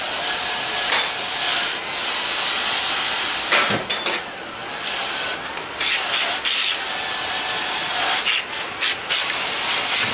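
A steady hiss with rubbing and scraping, broken by several sharp clicks of metal engine parts being handled.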